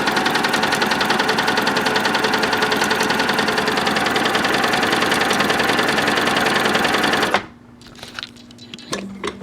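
Singer Touch & Sew Model 750 sewing machine running at a steady speed under its foot pedal, a fast, even clatter of needle strokes. It stops suddenly about seven seconds in, followed by a few light clicks.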